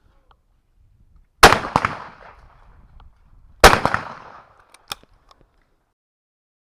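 Two shotgun shots about two seconds apart, fired at a pair of clay targets, each with a ringing echo tail. A few small sharp clicks follow.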